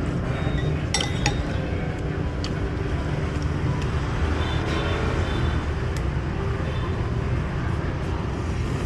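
Steady low rumble of street traffic, with two sharp clinks about a second in: eating utensils knocking against a ceramic soup bowl.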